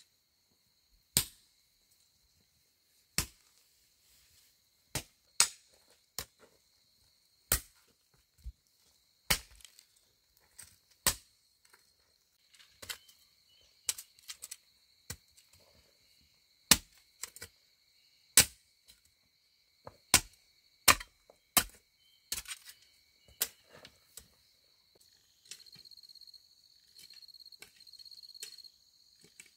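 Sharp blows on wood, about twenty irregularly spaced strikes a second or so apart, over a steady high insect drone. The blows stop near the end, where pulsing insect chirping takes over.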